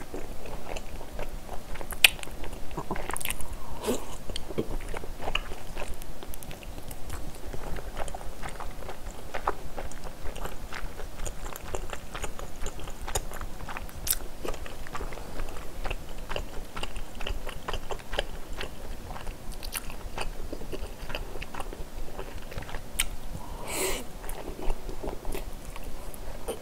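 Close-miked eating of spicy stir-fried pork and wide glass noodles: steady chewing with many small wet clicks and smacks of the mouth, and a louder one near the end.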